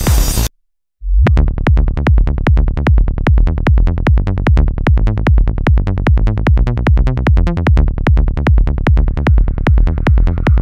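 Psytrance track at 150 BPM: the full mix drops out to silence for about half a second shortly after the start, then the kick drum and rolling bassline come back in a fast, even pulse, with a higher synth layer rising in near the end.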